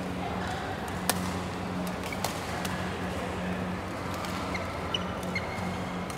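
Badminton rackets striking shuttlecocks on several courts in a large hall: sharp clicks at irregular intervals, the loudest about a second in, with a few short high squeaks of shoes on the court floor near the end, over a steady low hum.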